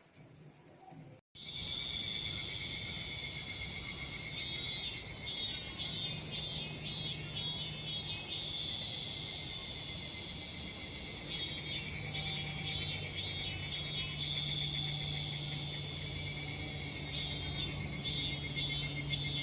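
A chorus of cicadas: a steady shrill drone of several overlapping calls, with some singers repeating fast pulsing phrases that come and go. It starts abruptly about a second in.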